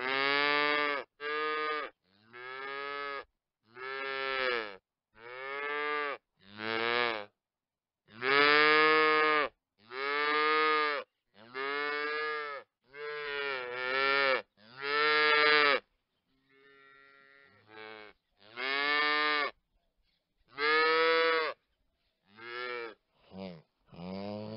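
Veal calves mooing: a long series of separate bawling moos, each half a second to a second and a half long, with short silent gaps between them. The calls grow shorter and quieter near the end.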